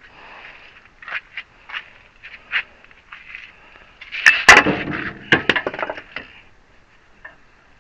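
Scattered knocks and clicks of parts and tools being handled during a hydraulic ram rebuild, with a loud burst of clattering about four to six seconds in.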